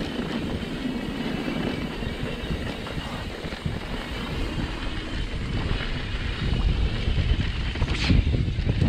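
Mountain bike riding down a dirt singletrack: tyre rumble and the bike's rattle, with wind buffeting the camera microphone, heavier in the second half. Near the end comes one sharp knock.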